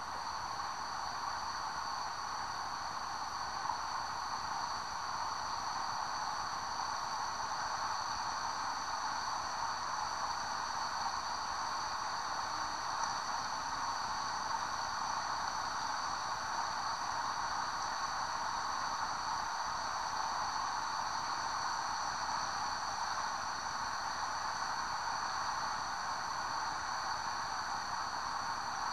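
Steady rushing of a woodland stream, with a thin steady high whine over it.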